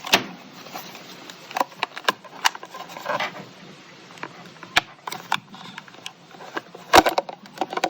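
Irregular clicks and knocks of hands handling and prying at a plastic external hard-drive enclosure, the loudest knock near the end.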